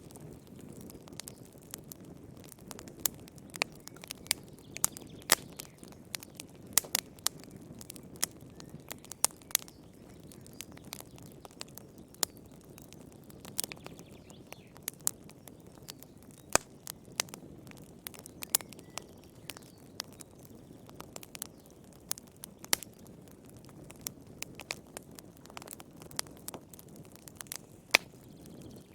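Wood fire crackling in a fireplace: irregular sharp pops and snaps, several a second at times, over a soft low rush of flame.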